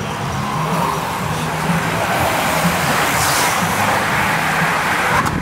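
A pack of racing bicycles passes close by: a rushing of tyres and wind that swells about two seconds in.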